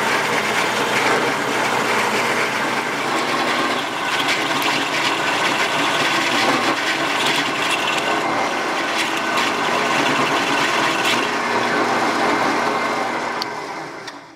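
Drill press running a 1 3/8-inch Forstner bit as it bores into a denim-and-epoxy micarta blank: a steady motor hum under the noise of the cut. The sound fades away near the end.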